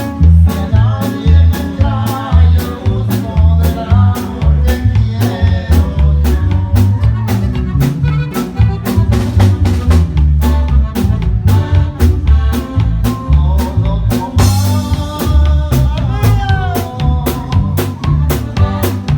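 Band music: a drum kit keeps a fast, even beat over heavy bass, with a keyboard melody on top and a rising pitch swoop about three-quarters of the way through.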